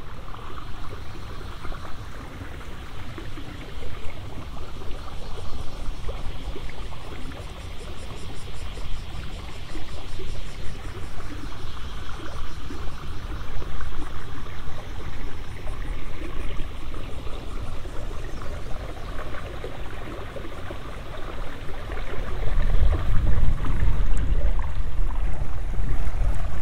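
Wind rumbling on the microphone, stronger near the end, over a steady trickling, water-like hiss from the paddy ditches, with faint pulsing insect calls high up.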